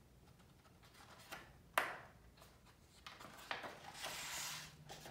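Page of a hardcover picture book being handled and turned: a few light clicks as the fingers take hold of the paper, then a short rustle of the page sweeping over about four seconds in.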